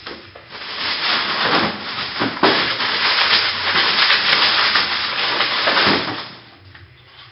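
Loud rushing, rubbing hiss lasting about six seconds, with a sharp knock about two and a half seconds in.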